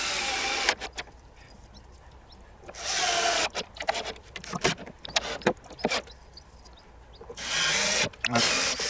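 Cordless drill-driver backing stainless-steel screws out of wooden cladding boards, running in short bursts of under a second, three main runs, with clicks and small knocks from the bit and boards between them.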